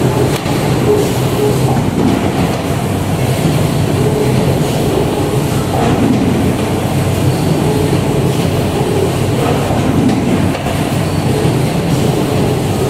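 CMD 540 automatic case-making machine running: a steady mechanical hum and rumble with a low drone underneath.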